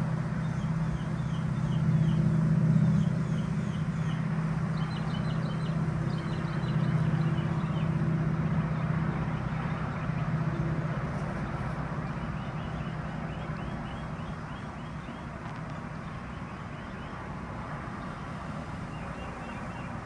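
Steady low motor hum that fades away after about ten seconds, with wild songbirds chirping in short repeated high phrases over it.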